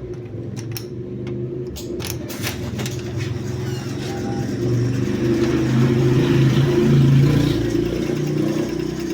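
1967 Wurlitzer 3000 jukebox mechanism running: a steady motor hum that swells louder in the middle, with several sharp clicks in the first two and a half seconds.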